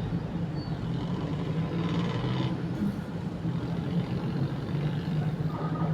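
City street traffic: a steady low hum of vehicle engines under a general wash of street noise.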